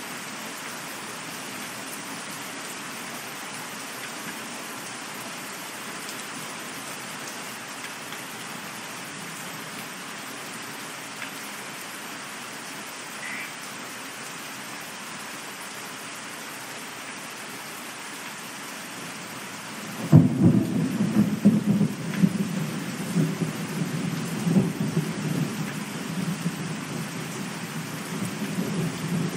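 Steady rain. About twenty seconds in, a sudden loud clap of thunder breaks in and carries on as a low, rolling rumble over the rain.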